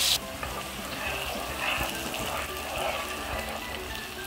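Dried-fish chutney paste frying in hot oil in a nonstick pan: a loud sizzle cuts off abruptly just after the start, then a softer, steady sizzle carries on.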